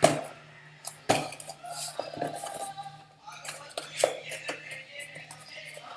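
Cardboard phone box and its packaging being handled and closed: a few sharp taps and clicks, spaced about a second apart, over a faint steady hum.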